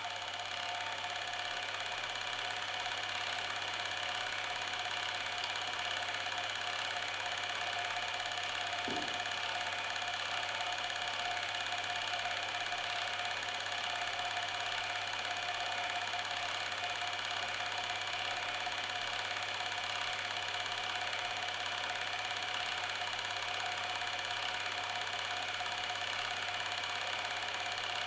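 Steady whirring of a running Super 8 film mechanism: an even machine hum with a high whine that never changes, and one faint tick about nine seconds in.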